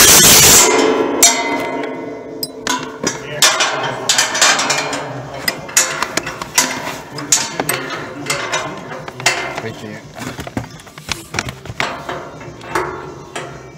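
Clinks and knocks of hand tools on the bumper's steel mounting bolts, scattered short strikes throughout, over background music. A loud, short burst of noise opens the stretch.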